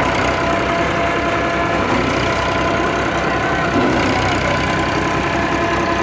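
Massey Ferguson 5245 DI tractor's diesel engine running steadily, driving a paddy thresher that runs along with it, with a steady hum near 1 kHz over a continuous low engine beat.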